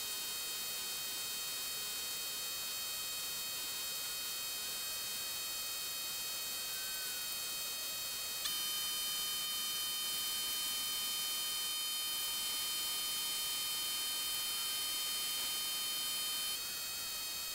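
Steady high-pitched electronic tones, like a held beep. A stronger tone comes in sharply about halfway through and cuts off shortly before the end.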